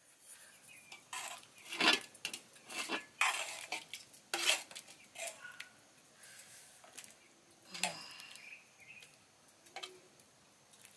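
Metal spoon scraping and clinking against an aluminium saucepan and its lid while beans are dished out: a string of irregular clinks and short scrapes.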